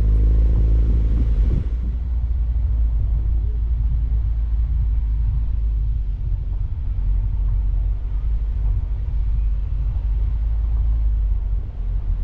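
Mini Cooper Countryman All4 driving on an off-road trail: a steady, loud low rumble of engine and tyres.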